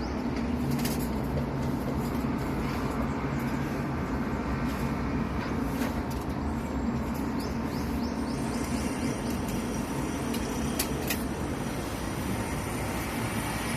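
A steady low mechanical hum, with a few sharp clicks.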